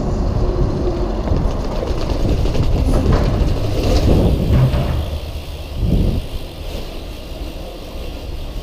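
GT La Bomba mountain bike rolling fast over brick paving and down steps, tyres rumbling and the bike rattling, with several sharp knocks from impacts on the way down.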